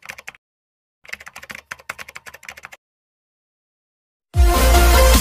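Rapid keyboard-typing clicks in two runs, the second lasting a little under two seconds. After a short silence, loud electronic dance music with heavy bass starts suddenly about four seconds in.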